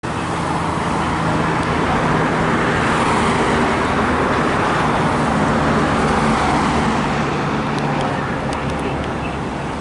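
Street traffic: cars passing close by with tyre and engine noise that swells and then eases, over a steady low hum.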